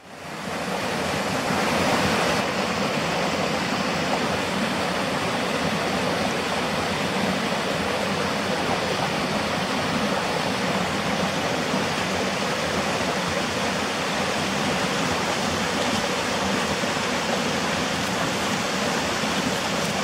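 Mountain stream rushing steadily over rocks and a small cascade, fading in quickly at the start.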